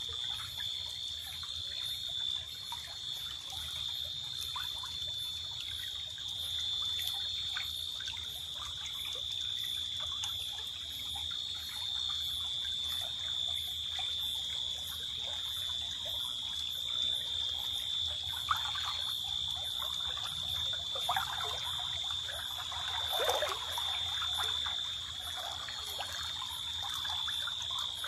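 Small forest stream trickling and gurgling over stones at night, under a steady high-pitched night chorus that keeps up one unbroken tone. A few louder noises stand out about two-thirds of the way through.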